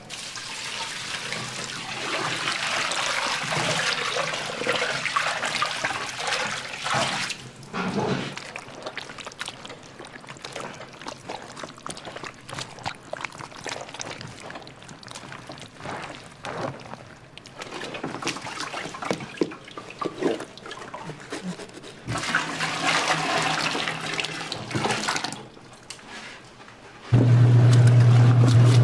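Watery paste poured from a plastic basin into a tub of seasonings, splashing and trickling, followed by quieter wet squelching of soft peppers being handled. Near the end an electric vegetable grinder starts up with a loud, steady hum as radish chunks are fed into it.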